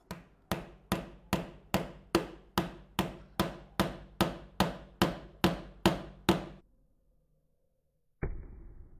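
A Xiaomi 14 Pro phone used as a hammer, its Dragon Crystal glass striking the head of a nail and driving it into a wood block: about sixteen quick, even taps, roughly two and a half a second, stopping about two-thirds of the way through. A single duller thump follows near the end.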